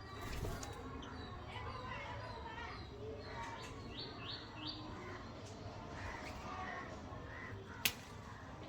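Birds calling, with three quick high chirps in a row about four seconds in and a single sharp click near the end.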